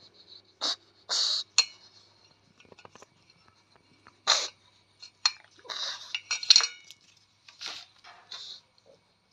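Pug eating chapati from a stainless steel bowl: irregular bursts of chewing, with the metal bowl clinking and ringing as the dog nudges it, loudest a little past the middle.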